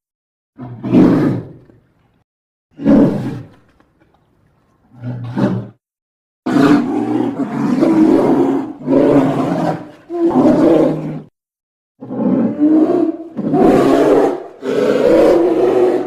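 A series of loud, pitched roars, each one to two seconds long. The first few are separated by sharp cuts to silence, and from about six seconds in they follow almost back to back.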